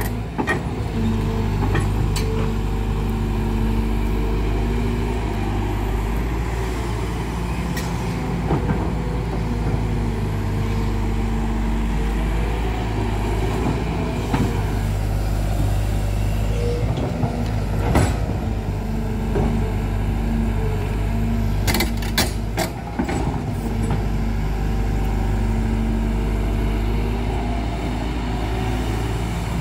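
Kobelco SK210HD crawler excavator's diesel engine running steadily under load as the machine digs and swings, with a few sharp knocks, the loudest about 18 seconds in.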